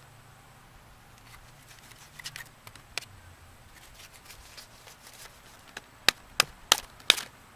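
Clear plastic utensil cutting into and prodding a charred banana on a paper plate: faint small ticks, then a quick run of four sharp clicks near the end.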